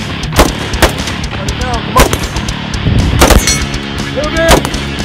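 Carbine gunshots: about six sharp shots fired at an uneven pace, two close together near the start, a cluster around the middle and one near the end, over a background music track.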